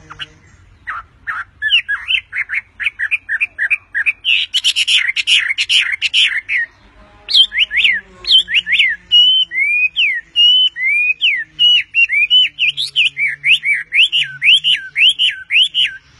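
A Chinese hwamei sings: a fast run of short notes that grows louder, a short pause, then from about seven seconds in a string of loud, clear whistled notes that slide down and up.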